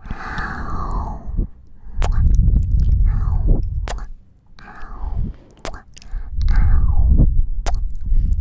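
Close-miked ASMR mouth sounds: wet kissing and sucking smacks right at the microphone, mixed with warm breathy exhales that rumble on the mic. The smacks come as sharp clicks several times, between the long breaths.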